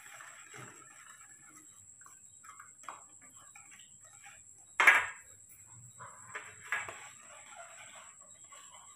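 A metal spoon stirring milk in a plastic cup, with a sharp knock about five seconds in and a few smaller knocks a second or two later.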